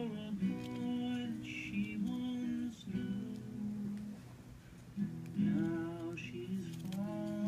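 A song played on acoustic guitar, with notes changing every half second or so and a brief quieter stretch around the middle.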